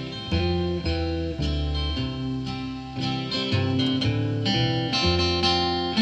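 Instrumental break with no singing: acoustic guitar played along with a backing track of electric guitar and bass guitar, the bass moving from note to note.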